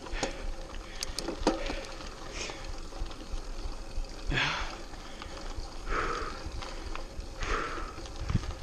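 Mountain bike rolling along a dry dirt singletrack: tyre and trail noise with a few sharp rattling clicks in the first two seconds. From about four seconds in, short hushing breaths come roughly every one and a half seconds, the rider breathing hard.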